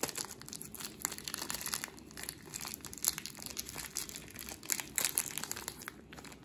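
Clear plastic wrapping crinkling and crackling as it is peeled off a sealed ball bearing by hand, in quick irregular crackles.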